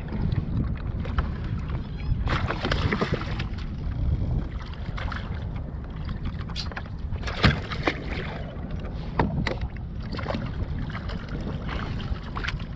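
Wind buffeting the microphone and choppy water slapping against a plastic sit-on-top kayak's hull, with a handful of sharp knocks scattered through.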